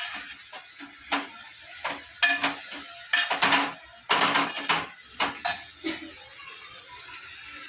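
Metal spoon clinking, knocking and scraping against an aluminium cooking pot while stirring sambar: a quick run of sharp clinks that stops about six seconds in.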